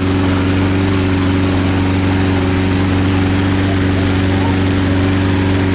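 Gasoline-powered inflator fan running steadily at a constant pitch, blowing air into a hot air balloon envelope during the cold-inflation stage.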